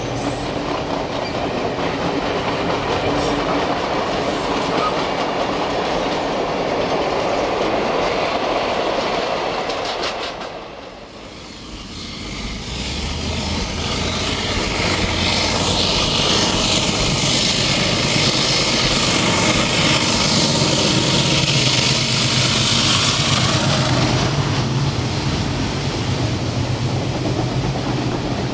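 Passenger train passing: carriages rolling by with steady wheel and rail noise. After a short dip about ten seconds in, an Alco diesel locomotive approaches and passes, its engine's low drone growing louder over hissing wheel-on-rail noise, and the carriages follow.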